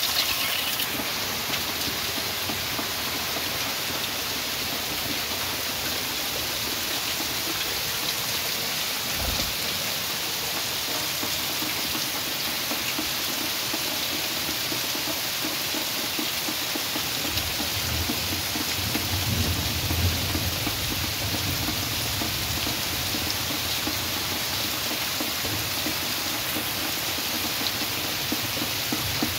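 Heavy rain pouring steadily onto waterlogged ground, puddles and plants. A low rumble joins a little past halfway and fades a few seconds later.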